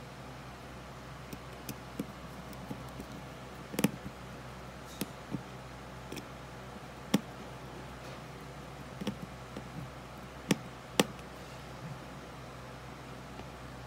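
Small screwdriver clicking and scraping on a relay module's screw terminals as a wire is clamped in. About a dozen scattered sharp clicks and taps, over a steady low hum.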